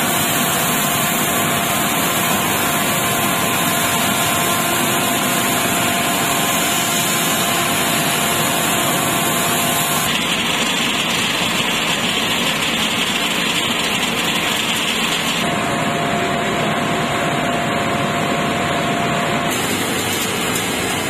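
Loud, steady hum of corn wet-milling plant machinery: motors and pumps running with a few steady tones over a constant rush of noise. The tones change pitch and mix about 10 seconds in and again about 15 seconds in.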